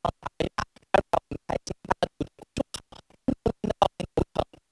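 A rapid train of short, chopped electronic pulses, about six or seven a second, each cut off sharply with silence between, like a stuttering digital glitch in the audio.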